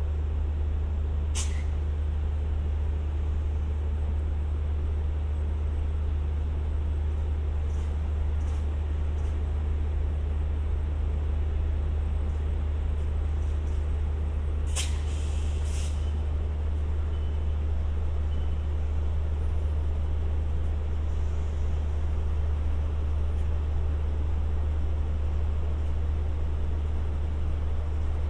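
Steady low drone of a diesel train's engine running, with short hisses of released compressed air about a second and a half in and again around fifteen seconds in, the second lasting about a second.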